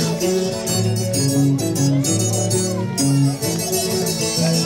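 Andean pumpin folk music played on guitars: a plucked melody over a stepping bass line.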